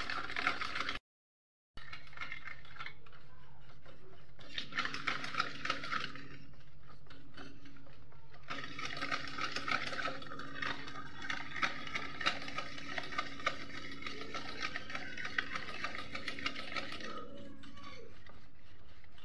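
Wire whisk beating runny cake batter in a metal bowl: fast continuous strokes with rapid clinks and scrapes of the wires against the bowl, to blend the sugar into the batter. A brief cut to silence about a second in.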